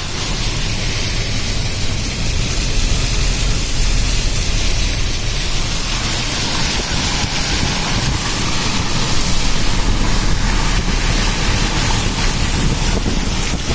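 Car driving slowly through shallow floodwater: a steady hiss of water sprayed and churned by the tyres over a low rumble of the engine and road.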